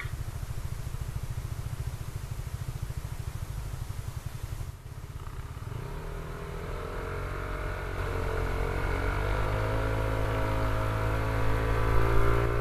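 Motorcycle engine idling with a fast low pulse, then revving up from about halfway as the bike pulls away, its pitch climbing steadily and getting louder toward the end.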